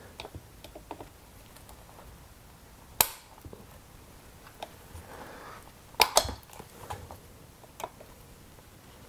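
Needle-nose pliers clicking and scraping against a broken muffler screw stub in a chainsaw cylinder, slipping off without getting a bite. Scattered small metal clicks, with two sharp louder clicks, one about three seconds in and one about six seconds in.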